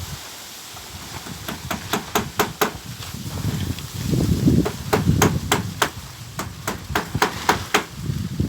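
Hammer driving nails into a wooden coop frame: a quick run of about five blows about one and a half seconds in, then a longer, even run of about three blows a second from about five seconds in. Low rustling noise rises between and after the runs.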